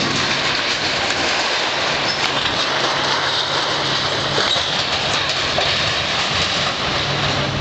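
Hydraulic excavator demolishing a building: a steady, loud rush of machine and debris noise with faint scattered knocks as the arm works the wreckage.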